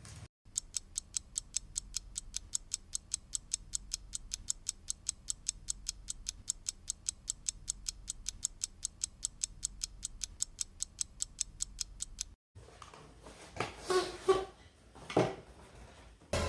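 Clock ticking, fast and even at about four ticks a second, for about twelve seconds before it cuts off abruptly. A few short irregular knocks and rustles follow near the end.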